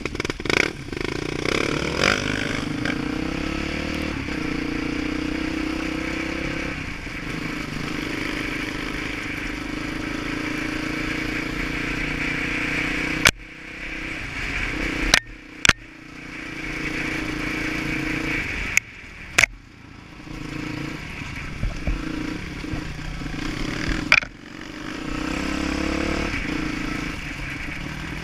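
Dirt bike engine running under throttle on a trail ride, its level rising and falling as the rider opens and closes the throttle. Several sharp knocks come in the second half, where the engine drops off.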